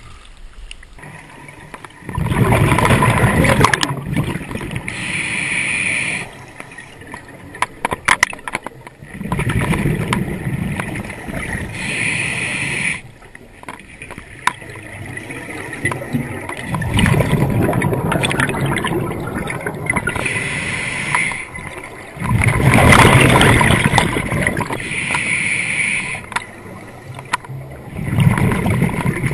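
Scuba diver breathing underwater through a regulator: about four breaths, each a long rumbling rush of exhaled bubbles followed by a shorter hiss of the inhale through the regulator.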